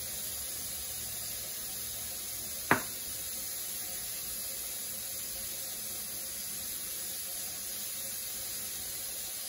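Steady faint hiss of room noise while olive oil is poured silently over pumpkin seeds, broken once about three seconds in by a single sharp knock as the glass olive-oil bottle is handled.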